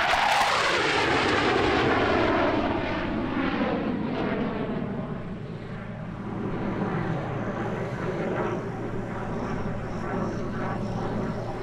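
Jet engine of an A-4 Skyhawk on a low, fast pass. The roar is loudest right away, with a falling whine as the jet goes by, then settles into a steady roar as it climbs away and swells a little again later on.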